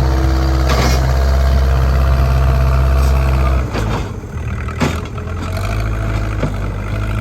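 JCB backhoe loader's diesel engine running hard, then dropping to a lower, quieter running level about three and a half seconds in. A few sharp knocks sound over it.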